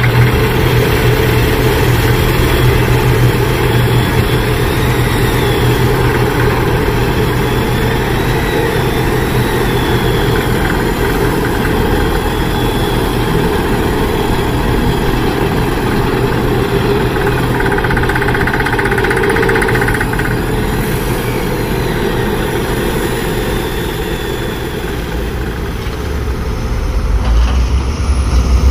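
Engine of a heavy construction machine running steadily, with a constant low hum under dense engine noise.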